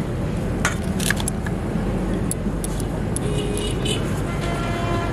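Steady rumble of traffic from a nearby road, with a couple of light clinks from a hand working bait in a steel bowl about a second in.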